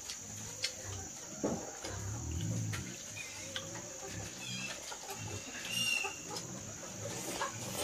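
Chickens clucking, with short high calls and scattered clicks over a steady high-pitched hiss.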